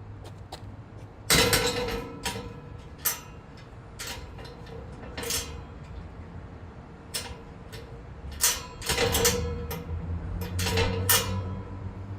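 Irregular metal clanks and taps from working on gate latch hardware, the loudest hits leaving a short ringing tone, the first and loudest about a second in and a cluster near the end.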